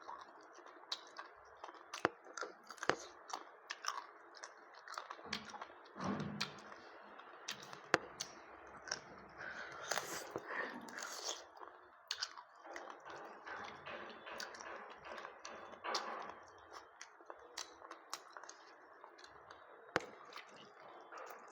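A person chewing and eating close to the microphone, with many irregular wet mouth clicks and smacks.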